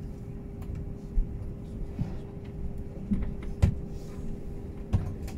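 Jet airliner taxiing: a steady low engine hum and rumble, broken by three short dull knocks about one, three and a half and five seconds in.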